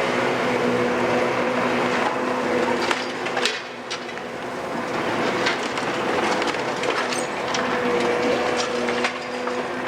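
Caterpillar M322C wheeled excavator's diesel engine and hydraulics running with a steady pitched hum, under a scatter of sharp cracks and knocks from demolition debris being worked.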